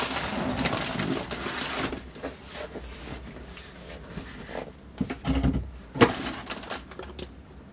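Crumpled newspaper packing rustling and a cardboard box scraping as a boxed kit is lifted out of its shipping carton, loudest in the first two seconds, then quieter handling with a sharp knock about six seconds in.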